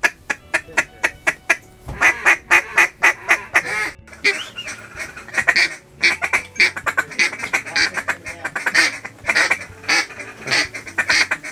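Rapid, continuous mallard-style quacking, several loud quacks a second, with short lulls about four and six seconds in.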